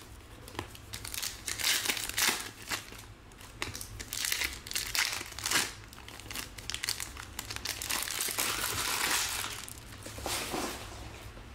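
Trading cards being flipped and slid through the hands one after another: a run of soft swishes and crinkles, with a longer rustle late on.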